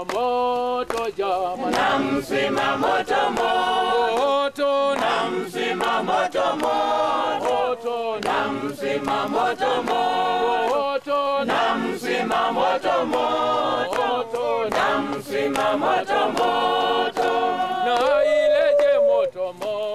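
A mixed choir of men and women singing together in unison and harmony, steady throughout.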